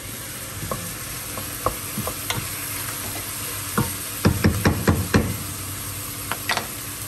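Diced carrots and vegetables sizzling as they sauté in a pot, stirred with a wooden spoon. A quick run of knocks of the spoon against the pot comes a little past the middle.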